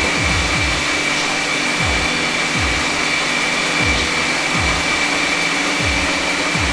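Turbo EHM9090 stand mixer running steadily at its lowest speed, its motor giving a steady high whine as the twin beaters churn cake batter in the self-turning bowl. Low thrums that drop in pitch come about once or twice a second under the whine.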